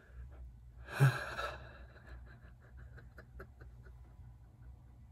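A man's breath: a sharp, breathy gasp about a second in, followed by a run of soft, quick breathy pulses at about four or five a second.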